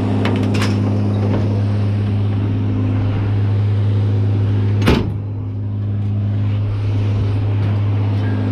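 A vehicle engine runs steadily with a low hum, and a single sharp bang comes about five seconds in.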